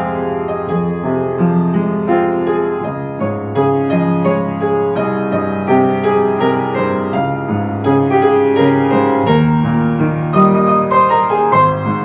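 Gentle ambient piano music: a steady flow of sustained notes over a low bass line.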